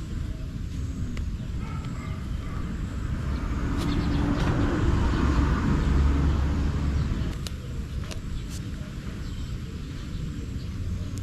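A vehicle passes by outdoors, growing louder to a peak about six seconds in and then fading, over a steady low rumble.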